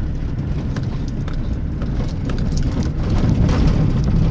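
A vehicle driving along: a steady low rumble with scattered small ticks and clicks, growing a little louder about three seconds in.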